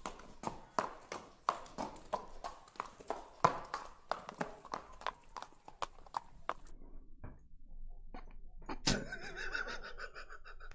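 A man laughing hard: a quick run of breathy, gasping bursts, then a louder, higher-pitched laugh about nine seconds in.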